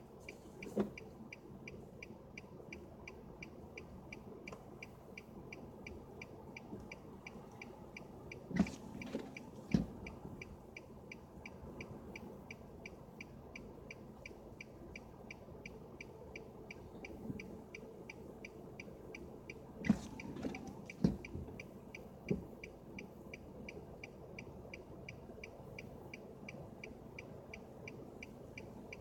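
A car's dashboard signal ticking evenly and rapidly, about two and a half times a second, such as a hazard-flasher relay or warning chime in a stranded car. A few dull knocks sound over it, twice around nine to ten seconds in and again around twenty to twenty-two seconds.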